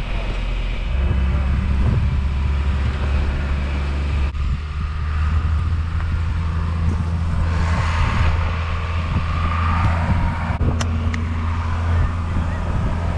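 Farm tractor's diesel engine running steadily, with wind buffeting the microphone and a couple of knocks from the camera being handled near the end.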